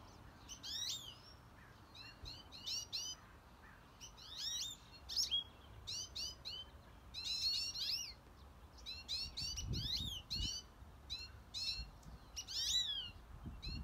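Goldfinches and house finches giving panicked chirping calls, short high notes sweeping up and down in pitch, coming in quick runs of several calls one after another.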